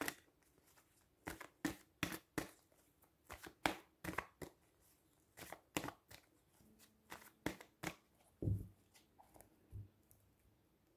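A tarot deck being shuffled by hand, faint papery riffles and slaps in quick clusters every second or so. Near the end come a couple of duller knocks as the deck is set down on the table.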